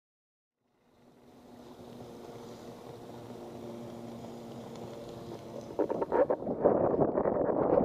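A steady drone with a few even tones, from a motorboat's engine out on the water, fades in about a second in. Near the end it gives way to louder, choppy water splashing against a windsurf board, with wind buffeting the microphone.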